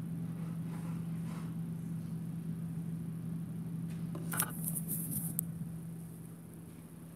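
A steady low hum in a small room. About four seconds in, a brief cluster of clicks and rustles comes from the camera being handled and picked up.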